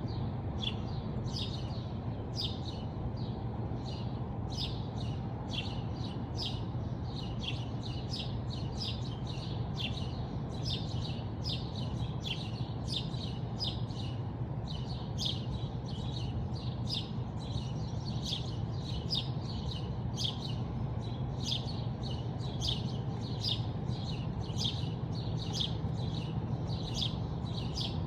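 Small birds chirping over and over: many short, high chirps, several a second, over a steady low rumble.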